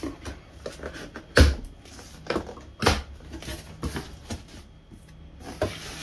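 Cardboard box being opened and handled, its flaps folded back and the packaging shifted, making a series of sharp knocks and thumps, the loudest about a second and a half in.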